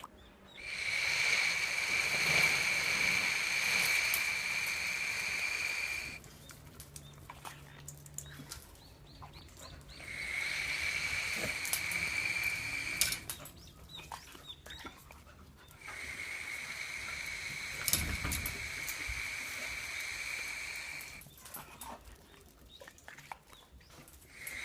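A steady, high-pitched motor whine that switches on and off in three long spells of about three to five seconds each, typical of a battery-powered bubble machine blowing soap bubbles. Scattered light clicks and ticks fall in the gaps between.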